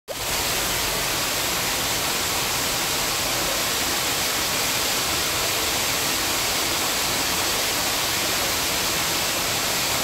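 Virje waterfall falling into its pool: a steady, even hiss of falling water that does not change.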